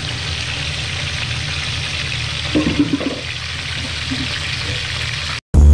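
Whole fish deep-frying in hot oil in a wok, a steady sizzle. The sizzle cuts off near the end and loud electronic music starts.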